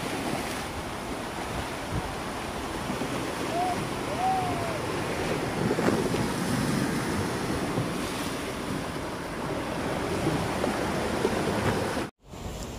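Rough sea surf surging and breaking against rocks, a steady rushing wash mixed with wind buffeting the microphone. The sound cuts out suddenly for a moment near the end.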